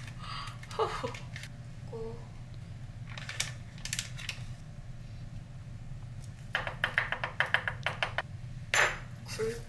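Kitchen knife chopping garlic on a cutting board: a few scattered knocks, then a quick even run of about ten chops, roughly five a second, a little past the middle.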